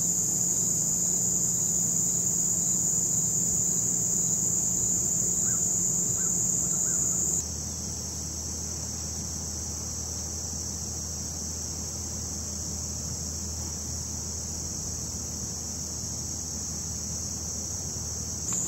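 Steady, high-pitched chorus of insects singing, dropping slightly in level about seven seconds in, with a few faint bird chirps near the six-second mark.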